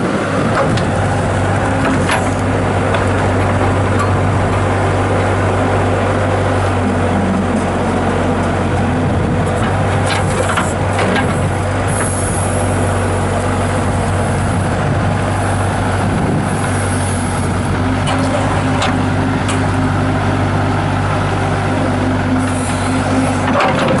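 Bobcat S185 skid steer's diesel engine running steadily under throttle, its note rising about a second in, while the Bobcat 607 backhoe attachment is worked through its hydraulic functions. A few short knocks from the moving boom and bucket.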